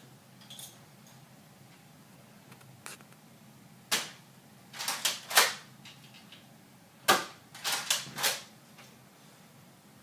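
Nerf Rampage pump-action dart blaster being pumped and fired: sharp plastic clacks in two quick groups, about seven in all.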